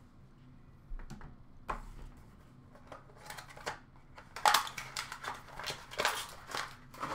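Hands handling trading-card boxes and clear plastic card cases: scattered clicks and taps about a second in, then busier clicking and rustling from about four seconds in.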